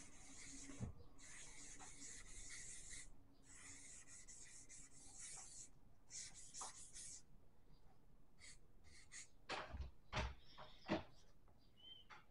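A marker rubbing across paper as a tag is drawn: several long hissing strokes of one to two seconds each, then shorter quick strokes. A few soft knocks come about ten seconds in and are the loudest sounds.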